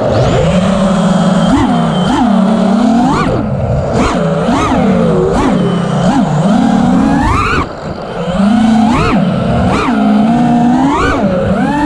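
Brushless motors and propellers of an Armattan Rooster FPV quadcopter, heard from its onboard camera, whining and sweeping rapidly up and down in pitch as the throttle is punched and eased. The sound drops briefly a little past two-thirds of the way through as the throttle is cut, then picks up again.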